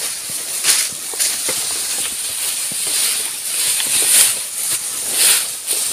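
Tall grass swishing and rustling against legs and body as people push through it on foot, in repeated surges of brushing noise with footsteps, over a steady high hiss.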